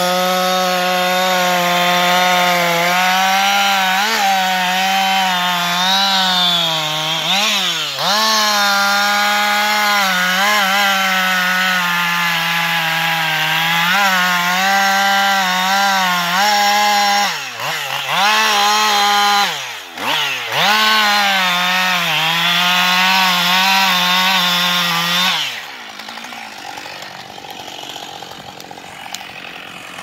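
Husqvarna 560 XP two-stroke chainsaw at full throttle, cutting a felling notch into a standing tree trunk. Its pitch holds steady under load, with brief dips a few times. The revs drop away about 25 seconds in, and it revs up again at the very end.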